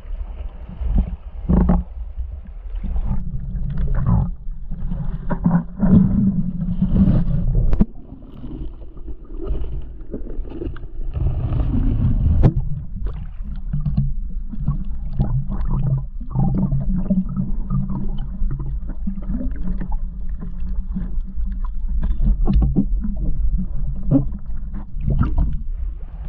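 Seawater sloshing and splashing around a phone camera held at the surface and dipped underwater, with a muffled underwater rumble and irregular knocks.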